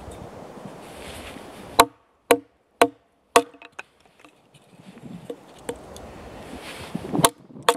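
An axe chopping a small billet of split firewood on a log into kindling. A sharp chop about two seconds in is followed by three quicker knocks, then two more chops near the end, with the light rustle of handling wood in between.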